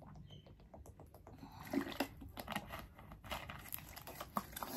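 Thin plastic water bottle crackling and clicking as it is gripped and squeezed while drinking from it, an irregular scatter of small clicks that grows louder about two seconds in.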